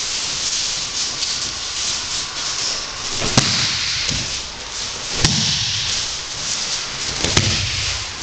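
Aikido students landing on the mats in breakfalls after throws: three thuds with a sharp slap, about two seconds apart, over a steady hiss.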